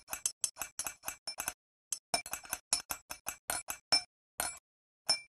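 Metal palette knife scraping and clinking against a small glass bowl while stirring acrylic gesso: quick ringing taps, about five a second, with a short pause about two seconds in, growing sparser near the end.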